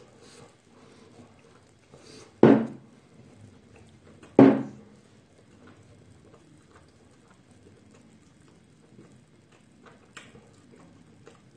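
Light clicking and tapping as tableware and a glass bottle are handled, with two sharp knocks about two seconds apart.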